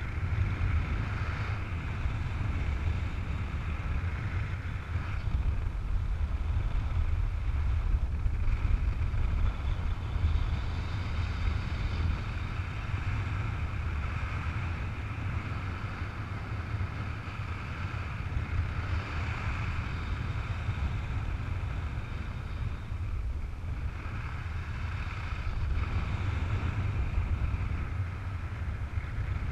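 Air rushing past a paraglider's camera during flight: a steady low rumble of wind buffeting the microphone, with a higher steady whine above it that briefly drops out a few times.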